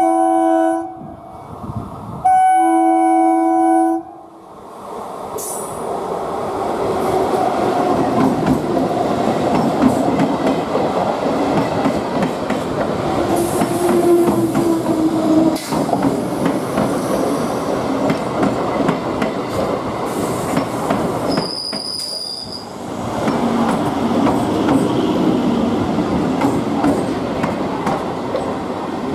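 Indian Railways EMU local train sounding its horn twice, a short blast and then a longer one about two seconds later. The train's coaches then rumble past, wheels clattering on the rails, with a brief high-pitched squeal about three-quarters of the way through.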